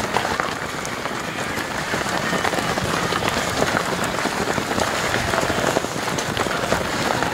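Footfalls of a large pack of cross-country runners passing on grass: a dense, steady patter of many feet.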